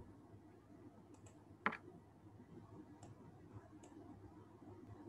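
A single computer mouse click about a second and a half in, with a few much fainter ticks, over quiet room tone.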